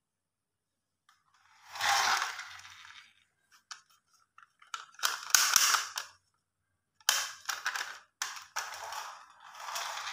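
Plastic toy dump truck being handled and pushed across a tabletop: rattling, clicking plastic and small wheels rolling, in about five separate bursts with short pauses between.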